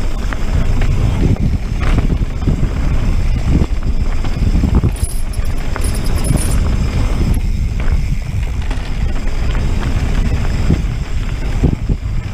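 Wind buffeting the microphone of a camera on a moving mountain bike, with the tyres rolling over a rough dirt trail and frequent knocks and rattles from the bike over bumps.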